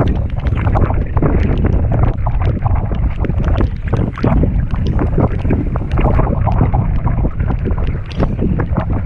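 Wind rumbling on the microphone over water splashing and lapping around a paddled canoe, with many scattered sharp ticks and splashes from the paddle strokes and the rain.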